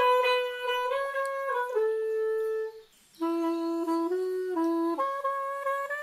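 A straight reed woodwind playing a slow melody of held, separate notes. It stops for a moment about three seconds in, picks up again on a few lower notes, and climbs back to the higher register near the end.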